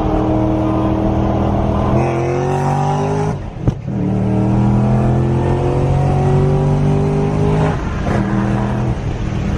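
A car engine pulling hard, its pitch rising, then a short break with one sharp crack at a gear change about three and a half seconds in, after which it pulls again in the next gear. The note drops back again near the end.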